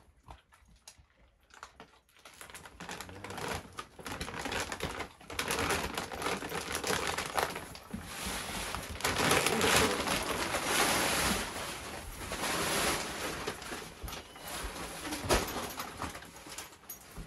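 Dry dog food being handled: kibble rattling and the plastic bag crinkling, a dense run of small clicks that starts about two seconds in and grows louder.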